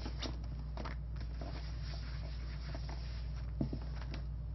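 Folded dry microfiber cloth wiped flat across an iPad's glass screen: a few brief, soft swishes of cloth on glass, with a light bump about three and a half seconds in. A steady low hum lies under it.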